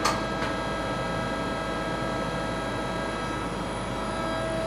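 EmcoTurn 360 CNC lathe with its live tool running at a slow 500 RPM just after start-up, giving a steady whine made of several constant tones over a mechanical hum. Two short clicks come right at the start and about half a second in.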